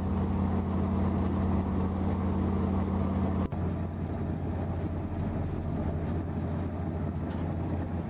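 Large road milling machine working: its diesel engine runs steadily with a low hum under a dense grinding noise as it mills the surface and conveys the cuttings into a truck. The sound drops out for an instant about three and a half seconds in, then carries on with a slightly different tone.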